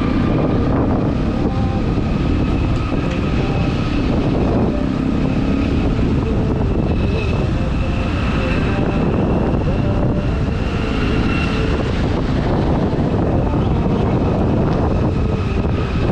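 Steady, loud wind and road rush of a motorcycle on the move, with wind buffeting the microphone.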